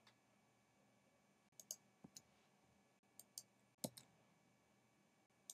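Near silence broken by about eight faint computer mouse clicks, some in quick pairs.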